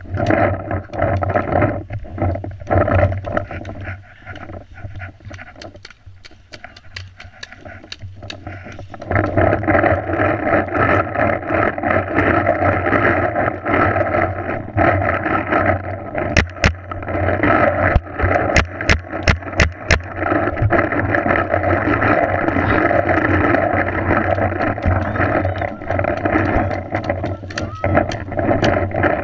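Paintball markers firing in sharp single cracks, several in quick succession in the second half, over a steady rushing noise that starts about nine seconds in, picked up by a helmet-mounted camera.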